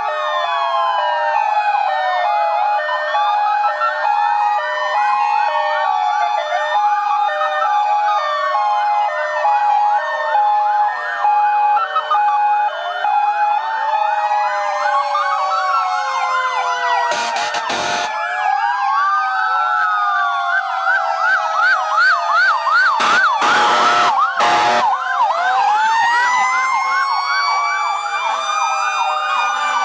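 Many emergency-vehicle sirens sounding at once from passing fire engines and ambulances. Slow wails and fast yelps overlap, with steady interrupted tones among them. Two brief bursts of broad noise come through, just past the middle and about two-thirds in.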